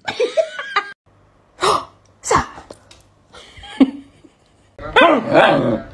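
The end of a woman's laughter, then after a cut a dog sneezing twice in quick succession, about a second and a half in and again just over half a second later, with a smaller snort near four seconds. A drawn-out pitched vocal sound starts near the end.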